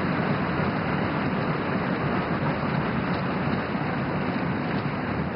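Large crowd applauding steadily, many people clapping at once.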